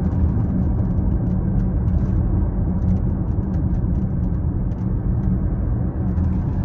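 Steady road and tyre rumble inside a moving 2022 Tesla Model X's cabin, with short, faint squeaks coming and going at irregular intervals. This is the squeaking noise the owner complains about in the car.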